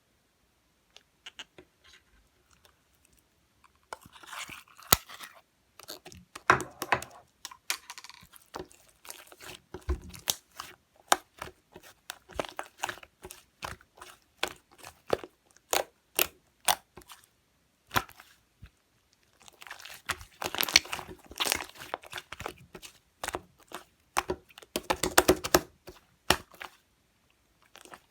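White slime squished, poked and stretched by hand: sharp sticky clicks and pops as air pockets burst, with denser crackly stretches a few seconds in and again near the end.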